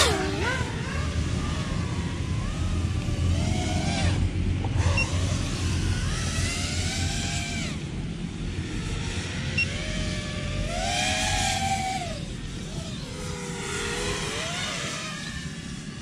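FPV freestyle quadcopter's brushless motors whining, heard from the pilot's position on the ground; the pitch repeatedly rises and falls with the throttle, climbing highest about eleven seconds in, over a low rumble.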